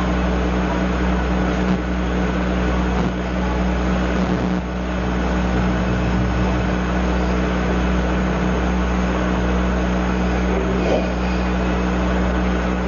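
Steady, unchanging hum with a hiss over it. No speech and no distinct events.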